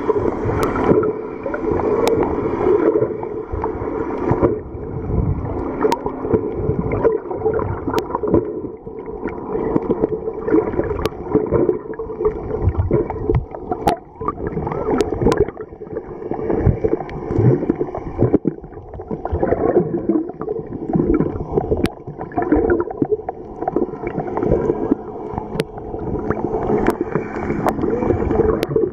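Muffled underwater gurgling and sloshing of water around a submerged camera, rising and falling unevenly, with scattered sharp clicks.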